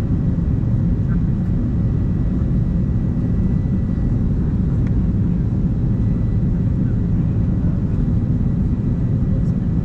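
Airbus A380 cabin noise: the steady low rumble of engines and airflow heard inside the passenger cabin, unchanging throughout, with a faint steady high whine.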